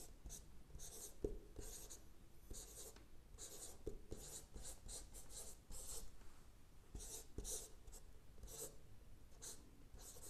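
Chalk writing on a chalkboard: a run of short, irregular, faint scratchy strokes with small taps as letters are formed.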